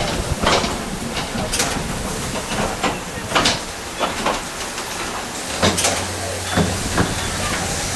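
Jacking AGV rolling a loaded wheeled garment rack out of a freight elevator: scattered clicks and knocks of the rack's casters and the AGV crossing the steel checker-plate floor and door sill, over a steady hiss, with a low hum for about a second past the middle.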